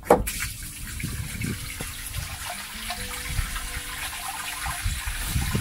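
A camper van's grey-water tank draining through its opened slide valve: a sharp click right at the start, then a steady stream of water pouring down and splashing into a drain.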